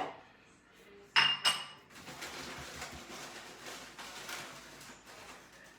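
Two quick ringing clinks, like something hard tapped against glass or ceramic, about a second in, then a faint hiss with small scattered ticks.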